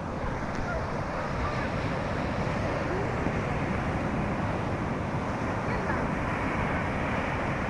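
Steady rush of wind and sea water, with wind buffeting the microphone, as heard out on the sea; faint voices come through now and then.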